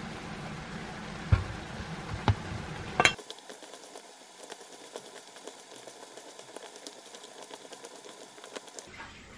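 A spoon knocks three times against a metal mixing bowl as seasoning is spooned in. Then, from about three seconds in, a hand in a plastic glove mixes cut green chili peppers with ssamjang and sesame oil in the bowl: many small irregular ticks and crinkles of the glove and wet peppers.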